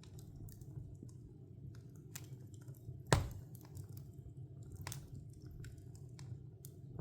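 Wood fire crackling: a steady low rumble of flames under scattered sharp crackles, with one loud pop from the burning logs about three seconds in.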